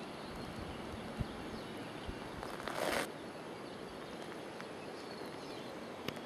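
Steady outdoor background hiss in the open air, with a brief louder rush of noise about two and a half seconds in and a couple of faint knocks.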